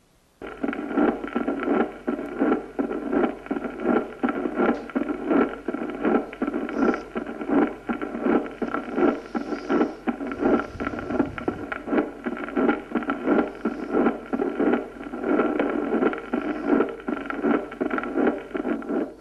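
Recorded heart sounds of pure mitral stenosis repeating beat after beat: an intense first heart sound, the second sound and an opening snap, with a diastolic rumble and presystolic accentuation, the 'ru-fu-ta-ta' cadence.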